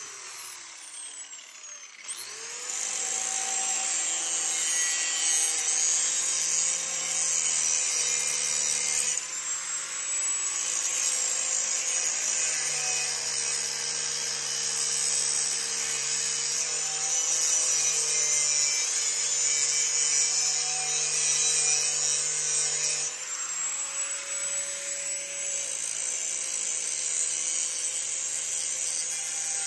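Angle grinder with a grinding disc cleaning up the metal of a tractor back blade before welding. The grinder winds down at the start, starts again about two seconds in and spins back up, then grinds steadily with a high whine whose pitch wavers.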